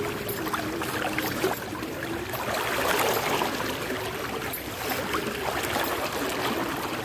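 Floodwater sloshing and splashing around someone moving through it: a continuous rushing with many small splashes, loudest about three seconds in.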